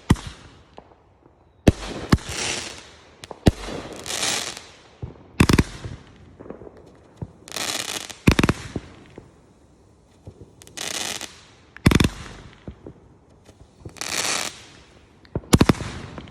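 'Loyal To None' consumer firework cake firing its shots one after another: a sharp launch thump every two to four seconds, each followed by about a second of crackling hiss as the shell breaks.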